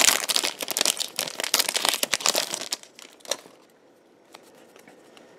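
Foil trading-card booster pack being torn open and crinkled: a dense crackling that stops about three seconds in, then one sharp tick.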